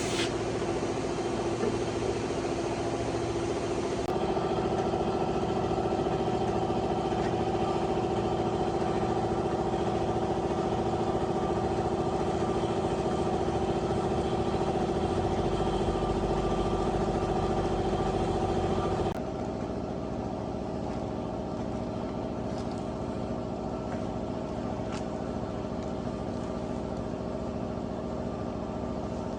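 A machine running steadily at a constant speed with an even hum. Its tone shifts abruptly twice, about four seconds and nineteen seconds in.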